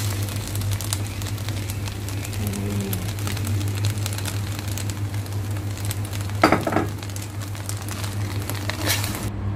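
Fusilli coated in beaten egg and cheese sizzling and crackling in a hot steel pot as it is stirred with a slotted spoon, over a steady low hum. One sharp knock about six and a half seconds in.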